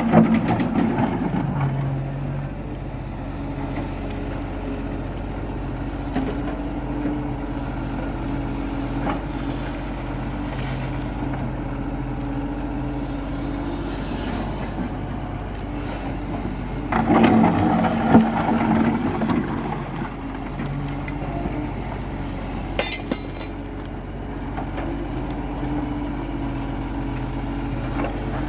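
Engine of heavy construction machinery running steadily, louder for a couple of seconds at the start and again about seventeen seconds in, with a brief sharp clink near the end.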